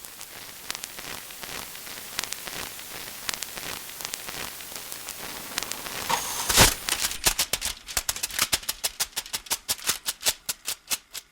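Rattling and clicking, like a shaken percussion rattle, played back through loudspeakers. It builds to one loud crash about six and a half seconds in, then turns into a steady run of clicks, about five a second, that die away near the end.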